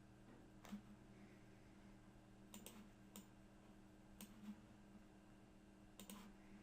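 A few faint computer mouse clicks, scattered and some in quick pairs, over a steady low electrical hum.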